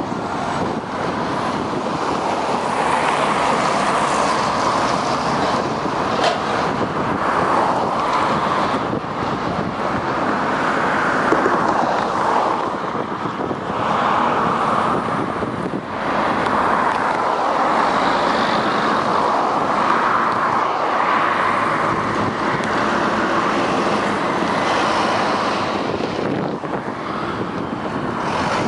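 Road traffic passing close by: city buses and cars going past one after another, a steady rushing noise of engines and tyres that swells and eases with each vehicle, with some wind on the microphone.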